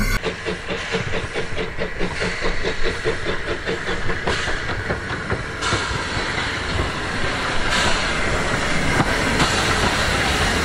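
Terrier-class 0-6-0 steam tank locomotive running slowly into a station with its carriages: steady regular clicks from the train and a hiss of steam that grows stronger about halfway through.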